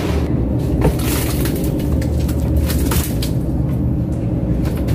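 Fishing trawler's engine running steadily under the deck, with a few knocks and clatters as fish are handled with a plastic basket in the fish hold.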